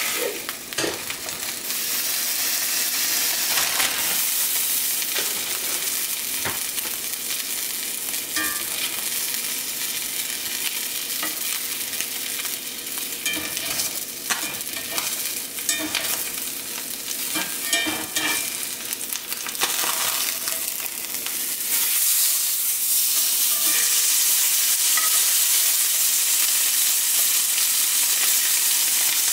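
Red snapper fillet searing in hot oil in a cast-iron skillet: a steady sizzle with scattered pops and the clicks of metal tongs against the pan. The sizzle grows louder and steadier about two-thirds of the way through.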